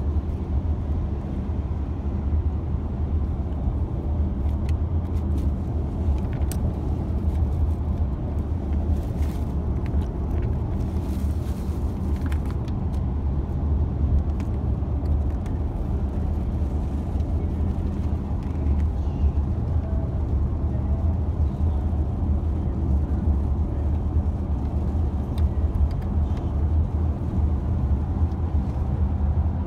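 Steady low rumble of road and engine noise from a moving 2017 Ford Explorer, heard from inside the cabin, with a few faint clicks now and then.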